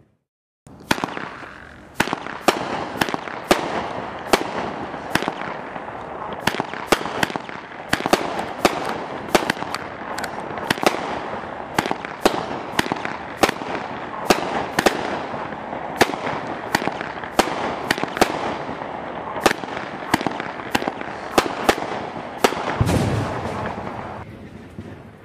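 A Dominator Backyard Perfection 24-shot, 200 g firework cake firing its flaming balls and reports: a rapid string of sharp cracks, roughly two a second, over a continuous hiss. There is one deeper thump near the end, then the sound fades away.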